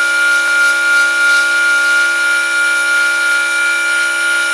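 Variable-speed mini wood lathe running at about 4,000 RPM: a steady high whine of several held tones from its motor and spindle.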